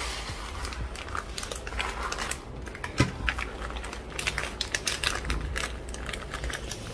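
Dry rice being put into a plastic vacuum-sealer bag: irregular ticking of grains and crinkling of the plastic, with one sharper click about three seconds in.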